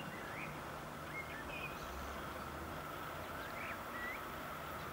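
Small birds chirping, a handful of short rising calls scattered through a few seconds, over a steady faint background hum and rumble.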